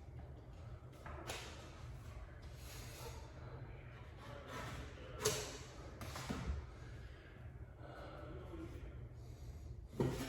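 Quiet handling sounds of wallpaper being hung: faint rustling and scraping with a few light knocks, the loudest about five seconds in, another just after six seconds and one near the end.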